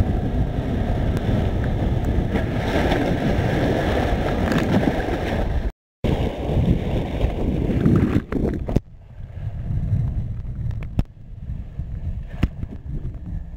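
Rushing surf water and wind buffeting the microphone of a waterproof compact camera carried through breaking waves. The sound cuts out briefly about six seconds in, is loud again for a few seconds, then falls to a quieter hiss with scattered clicks as water drips and splashes on the camera.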